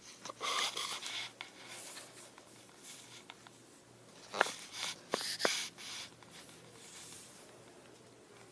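Handling noise from hands, clothing and the recording device: soft rustling in the first second or so, then a few sharp clicks and knocks a little past the middle.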